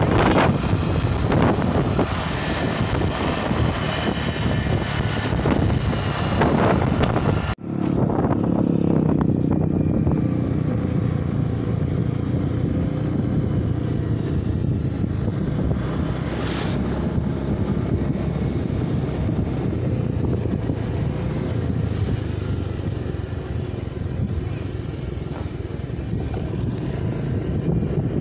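A motorcycle riding along the road, with its engine and road noise mixed with wind buffeting the microphone, steady throughout. There is one sudden brief dropout about seven and a half seconds in.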